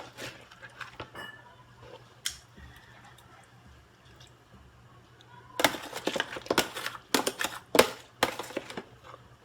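Kitchenware clattering: a sharp knock at the start and another about two seconds in, then a quick run of clinks and knocks for about three seconds in the second half.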